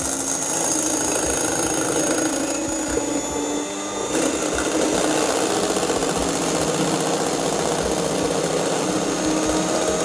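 Electric stand mixer running steadily, its beaters whipping egg whites in a stainless steel bowl; the whir dips slightly about four seconds in.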